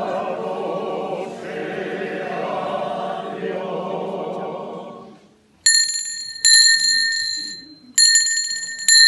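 A group of voices singing a slow hymn with brass accompaniment, the phrase dying away about five seconds in. Then a small handbell is struck four times in two pairs, each stroke ringing out with a clear, high bell tone.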